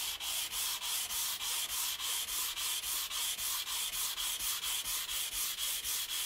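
Sanding block rubbed rapidly back and forth over the edge of a thick paper spine liner, about five scraping strokes a second, bevelling the edge.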